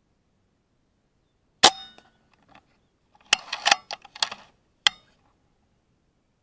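A PCP air rifle fires once, a sharp crack with a short ring about one and a half seconds in. A quick run of metallic clicks and clacks follows, then a last click: the action being worked to load the next homemade slug.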